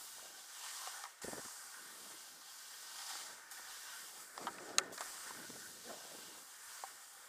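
Skis hissing through loose snow in swells, with wind on the microphone; a knock about a second in and a sharp click a little under five seconds in.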